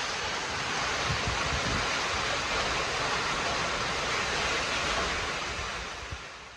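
Heavy storm rain pouring down as a steady hiss, with gusts of wind buffeting the microphone early on. It fades away near the end.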